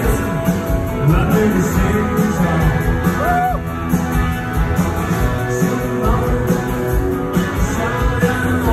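Live rock band playing at full volume: electric guitars, bass and a drum kit through a concert PA, heard from the crowd.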